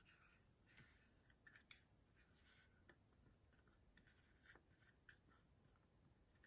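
Faint, intermittent scraping of a silicone spatula against the inside of a plastic measuring cup as melted ghee is scraped out into a bowl of flour.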